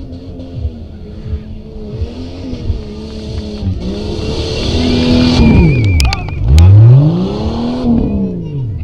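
Stock Jeep Cherokee's engine revving hard again and again on an off-road course, its pitch climbing and dropping with each rev. The loudest, longest rev comes a little past the middle.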